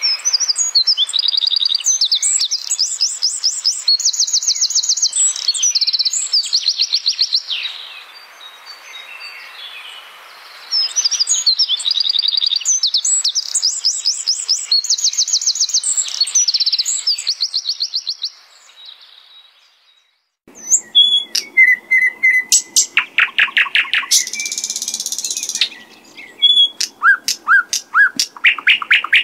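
Wild songbird singing a loud, high-pitched song of rapid trills and rattling phrases, the song given once and then repeated after a short pause. About twenty seconds in, the sound switches abruptly to other bird calls: lower whistled notes, a short hiss-like burst and a run of quick upward chirps.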